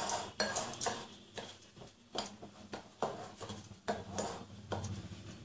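A wire whisk stirring dry wheat flour and semolina in a glass bowl: irregular scrapes with light clinks against the glass.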